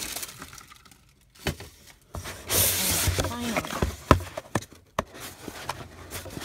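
Cardboard product boxes and tissue paper being handled and shifted inside a shipping box: a run of short knocks and taps, with a louder stretch of papery rustling about two seconds in.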